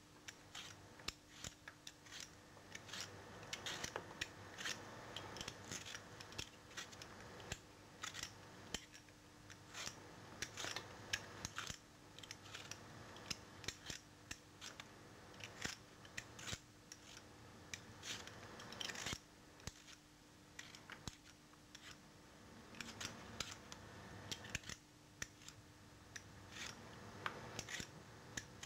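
Speed peeler scraping strips off a raw potato: repeated short, sharp strokes at an uneven pace, over a faint steady hum.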